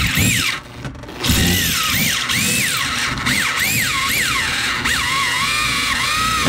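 Bosch electric drill boring out the mounting-eye hole of a Monroe air shock with a 1/2-inch bit, the motor's whine rising and falling as the bit bites and frees. It eases off briefly about a second in, then drills on steadily.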